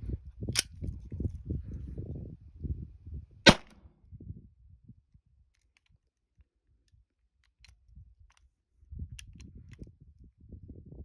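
Shots from a .22 LR 1911-style pistol: a sharp crack near the start and a louder shot about three and a half seconds in, followed by a few faint clicks later on. A low rumbling noise runs under the first three seconds and comes back near the end.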